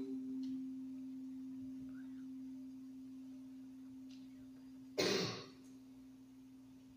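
A bell struck once just after a name is read aloud: one low note starting sharply and ringing on, slowly fading. About five seconds in, a short loud burst of noise cuts across it.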